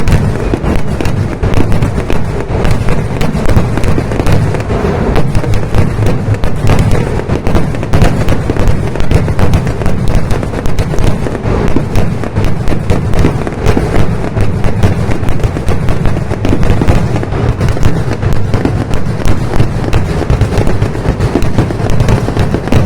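Kerala temple-festival fireworks (vedikkettu) going off in a dense, unbroken barrage of loud bangs and cracks, many to the second, with no pause.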